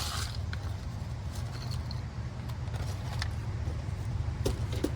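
Scattered light clicks and clinks of hand tools being moved about while searching for a 10 mm socket, over a steady low rumble.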